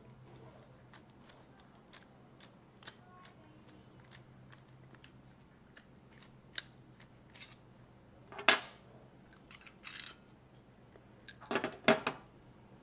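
Small metal clicks and clinks as the stainless steel parts of a US Sankey keg coupler are handled and worked apart. There is a louder metal clank about two-thirds of the way in and a short clatter near the end as the lever handle comes free of the body.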